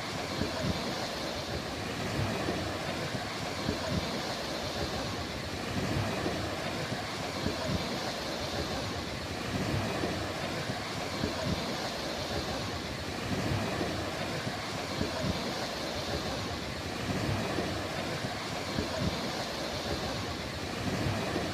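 Sea waves washing onto a beach: a steady surf hiss that rises and falls gently every few seconds.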